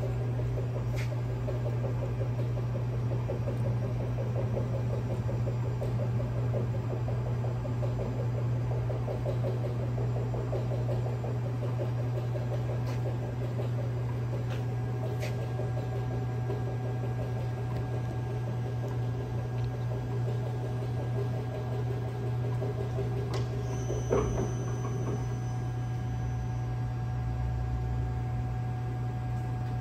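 Steady low machinery hum from the shop, with a few faint clicks and one light knock about three quarters of the way through.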